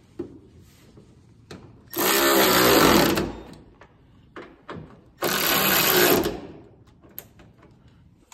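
Cordless power ratchet running in two bursts of about a second each, spinning out the front fender's mounting bolts, with a few small clicks of handling between them.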